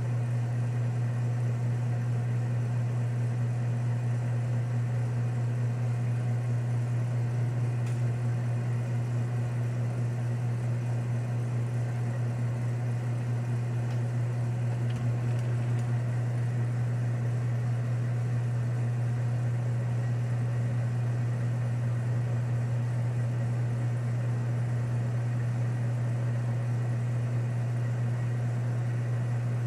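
Lathe's electric motor running steadily, a low, unchanging hum.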